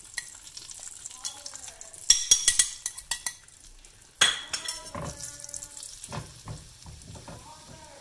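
Ground spices sizzling in hot oil in a frying pan as a silicone spatula stirs them. About two seconds in there is a loud run of clattering knocks, and a little after four seconds a sharp knock with a brief ringing tone.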